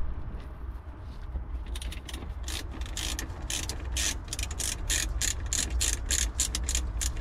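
Hand ratchet with a 10 mm socket clicking in quick repeated strokes, about three to four a second, as it loosens a car battery terminal nut; the clicking starts about two seconds in.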